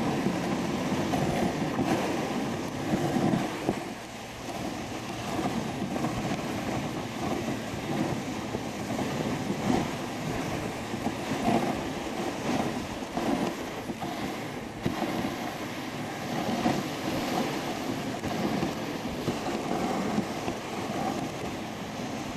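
Dog sled moving over packed snow behind a husky team: a steady rumbling scrape of the runners, with irregular jolts and knocks as the sled rides over the trail.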